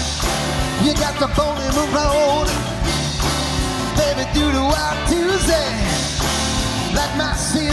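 Upbeat rock and roll band music with singing over a steady beat.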